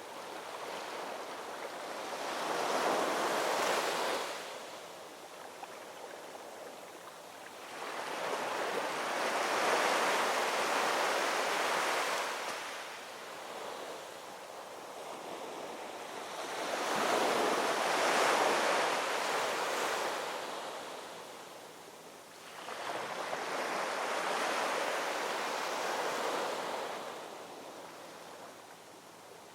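Ocean waves rolling in and washing on the shore, the surf swelling and fading about every seven seconds, four surges in all.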